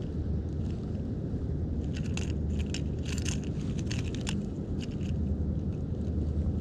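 Pliers clicking and scraping against a lure's hook in a barracuda's mouth as it is worked loose, with a run of sharp metal clicks through the middle. A steady low rumble lies underneath.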